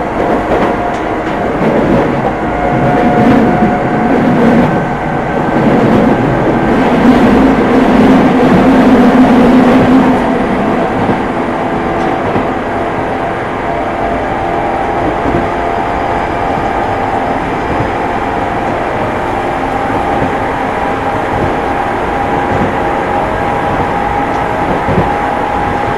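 Odakyu 9000 series electric train running between stations, heard from inside the car: a steady rumble of wheels on rail with a motor tone. There are a few rail-joint clicks in the first seconds, a louder stretch over the first ten seconds, and then a faint whine that rises slowly.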